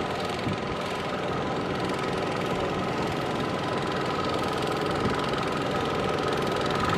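Single-cylinder diesel engine of a two-wheel tractor running steadily under load as it pulls a loaded trailer through mud, with a fast, even beat. It grows slightly louder toward the end as it comes closer.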